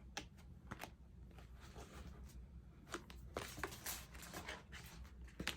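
Faint, scattered taps and light rustles of plastic craft pieces being handled on a work table, a few clicks close together a little past the middle.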